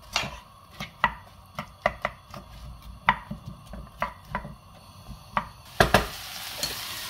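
Wooden spoon stirring chopped onion and courgette in a sauté pan, knocking and scraping against the pan a few times a second. Near the end come two louder knocks and a steady sizzle of frying sets in.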